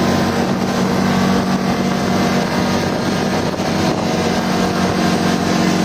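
Engine of a 600cc CFMoto UForce side-by-side running at a steady speed while driving, heard from inside the cab with the windows open. A constant engine drone sits under wind and road noise.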